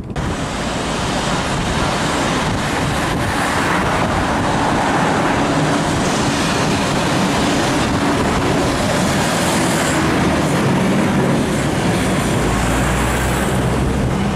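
City street traffic noise, with a minibus engine running as it passes close by. A low engine hum swells near the end.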